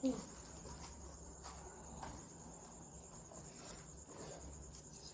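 Faint, steady high-pitched trill of crickets in the background, over a low hum, with a few faint clicks and a brief pitched sound right at the start.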